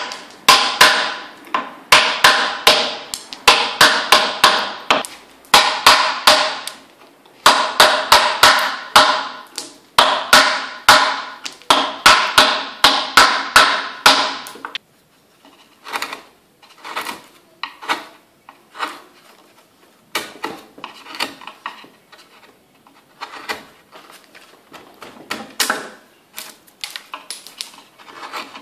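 Wooden mallet striking a wood-carving gouge as it cuts into a carved wooden picture frame: quick runs of sharp, ringing taps for about the first half. The taps then give way to quieter, sparser cuts and scrapes as the gouge is worked by hand.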